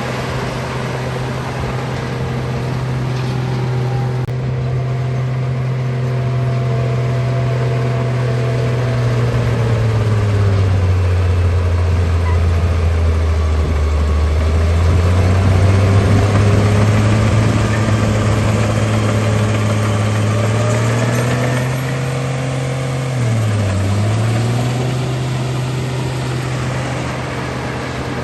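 Bulldozer engine running steadily. About ten seconds in its pitch sags and holds low for several seconds, then climbs back. A brief dip and recovery comes a few seconds before the end.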